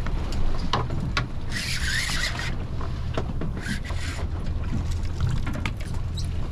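Steady low hum of a fishing boat's idling engine, with scattered sharp knocks and clicks and two short bursts of hiss, about two seconds and four seconds in.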